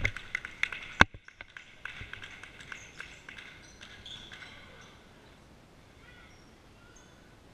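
Basketball game on a gym floor: the ball bounces, with one loud bang about a second in, then scattered sneaker squeaks and faint voices as the noise dies down.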